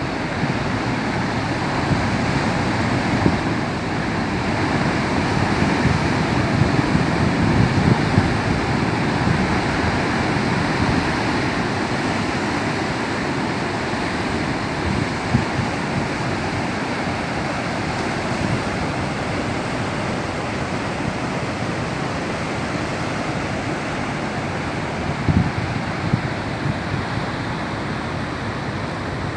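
Rough, choppy sea: waves breaking and surging continuously against the coast, swelling and easing, with wind buffeting the microphone in short low thumps.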